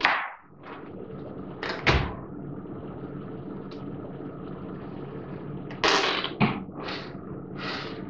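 A whipped-cream aerosol can's spray hiss cutting off right at the start. A knock follows about two seconds in, then several short breathy puffs and splutters near the end from a mouth stuffed with whipped cream, over a steady low hum.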